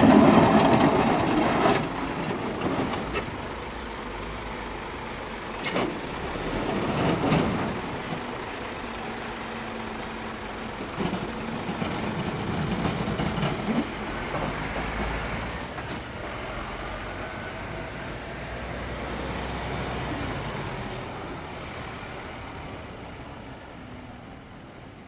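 Scania plow trucks' diesel engines running as the trucks drive through snowy streets, with a loud rush at the start as the front plow blade pushes through snow. There are a few short clicks along the way, and the sound fades as a truck pulls away.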